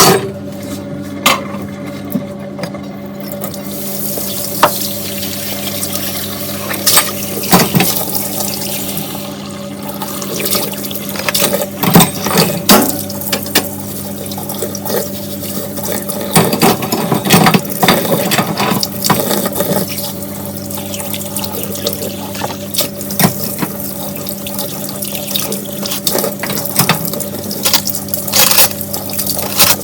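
Kitchen tap running into a sink while dishes are washed by hand, with frequent short clinks and knocks of dishes being handled. A steady low hum runs under the water.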